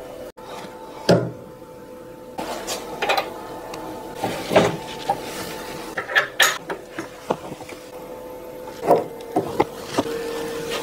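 Handling and adjusting a CNC rotary axis attachment: scattered knocks and clicks of its metal and wood parts as a clamping knob is turned and the stock is worked, some in quick pairs. Under them runs a steady hum.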